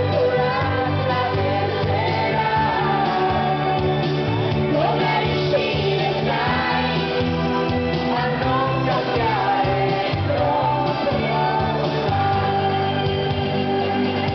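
A woman singing live into a handheld microphone over amplified musical accompaniment, a pop song performed through a PA.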